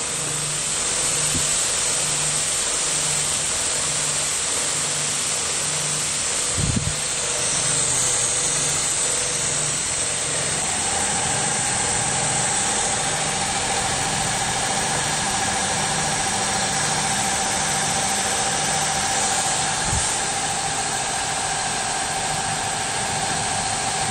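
Automatic vertical chain towel sewing machine running: steady mechanical noise with a high hiss and a low hum that pulses a little more than once a second. A steady whine joins about eleven seconds in, and there are two low thumps.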